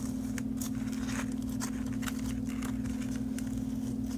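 Soft crackling and rustling of potting mix and a thin plastic cup being handled as a plantlet is firmed into its pot, with many small irregular clicks. A steady low hum runs underneath and is the loudest thing throughout.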